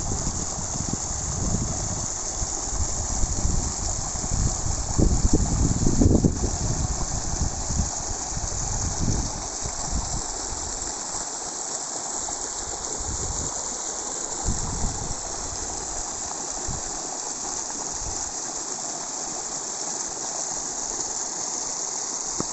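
Floodwater gushing and running over muddy ground: a steady rushing noise. Wind buffets the microphone in irregular gusts for roughly the first ten seconds, then eases.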